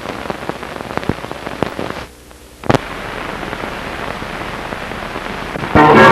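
Surface crackle and hiss of an old 1930s optical film soundtrack, with scattered clicks and pops. About two seconds in it briefly drops quieter and ends with a sharp pop. Orchestral music with brass comes in near the end.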